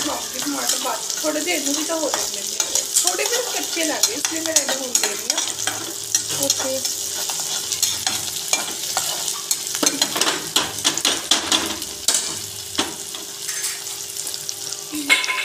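Sliced onions and green chillies sizzling in hot oil in a metal kadhai, browning. A metal spatula scrapes and clicks against the pan as they are stirred.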